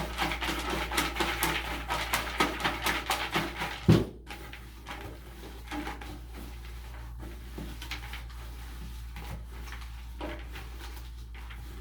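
Raffle tickets being shaken in a container: a fast, dense rattle for about four seconds that ends in a single loud thump, followed by fainter, scattered rustling and clicks as the tickets are handled.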